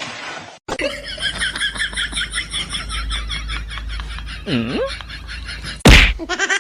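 Rapid high-pitched laughing, about five short pulses a second for around five seconds, ending in a short loud burst of noise.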